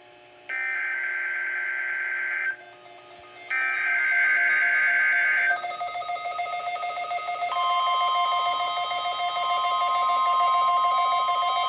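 NOAA Weather Radio emergency alert test: two bursts of harsh, buzzing digital header data, each about two seconds long with a second's gap between them. After that a steady lower tone sounds, and about halfway through the steady, piercing warning alarm tone comes on and holds.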